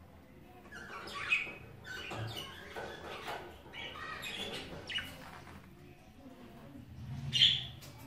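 Caged budgerigars chirping and chattering: a run of short, high calls in the first five seconds, then one louder, sharp chirp about seven seconds in.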